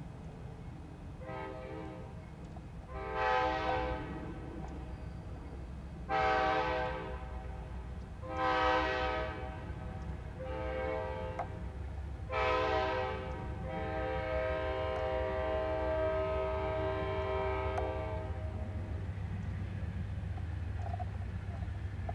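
Amtrak locomotive's multi-tone air horn sounding a series of blasts of about a second each, some fainter than others, ending in one long blast of about four seconds, over a steady low rumble.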